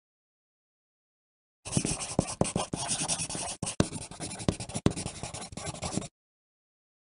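Pencil writing on paper: a run of scratchy strokes with sharp little taps, starting about two seconds in and stopping about six seconds in.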